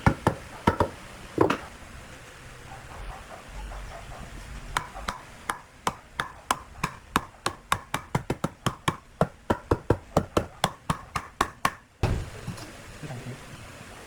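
Sharp knocks of a tool striking wood: a few single blows, a pause, then a long quick run of even strikes at about three to four a second that stops abruptly.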